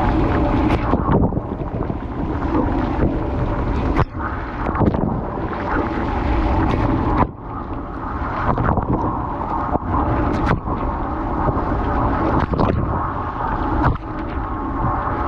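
Dishwasher running its wash cycle, heard from inside the tub: water spraying and sloshing against the racks and camera over a steady hum, with a few sharp knocks.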